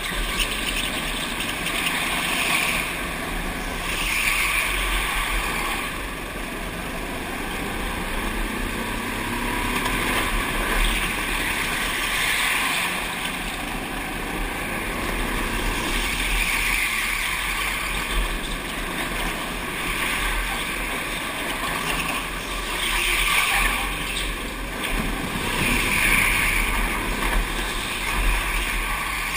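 Go-kart engine running at speed, with wind rush over a helmet-mounted camera. It is a steady rush that swells and eases every few seconds.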